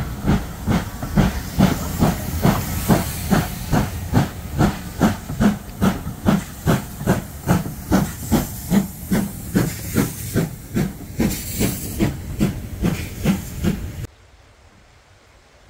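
Steam locomotive working hard, a steady beat of exhaust chuffs with steam hiss, about two to three beats a second, plausibly LMS Black 5 No 45212's two-cylinder exhaust. The chuffing breaks off abruptly near the end.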